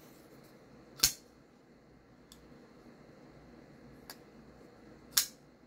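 Kubey Drake folding knife flipped open on its ball-bearing pivot, the blade snapping into lock with two sharp clicks about four seconds apart, with two fainter clicks between them as the blade is worked closed.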